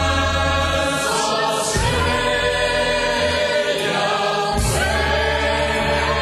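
Choir singing in harmony with musical backing, holding long notes.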